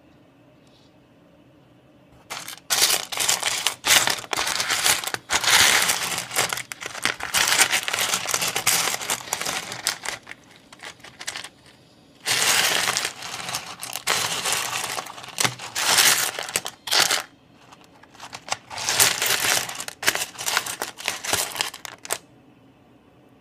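Pieces of rough opal clattering and clicking against each other and the tray as a hand rummages through the pile. The clatter comes in three spells of several seconds each, starting about two seconds in, with short pauses between, and stops about a second before the end.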